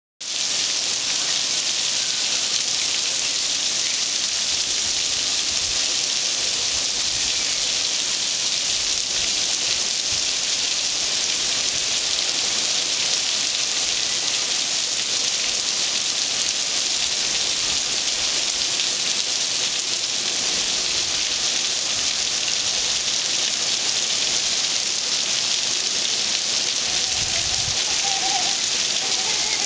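Steady rain falling on pavement and tree leaves: an even, dense hiss.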